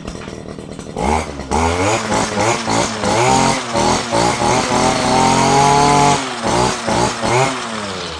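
Stihl FR 230 backpack brushcutter's two-stroke engine idling, then blipped up and down repeatedly from about a second in, held at high revs for about a second past the middle, and settling back to idle near the end.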